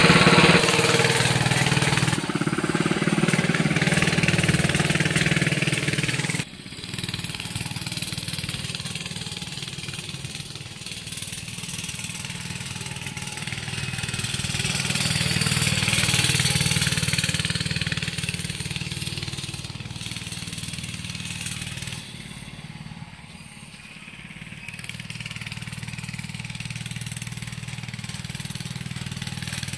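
Coleman CT100U minibike's small engine running, loud close by for the first six seconds, then suddenly quieter as the bike rides off across the grass; after that its sound swells and fades as the bike circles nearer and farther away.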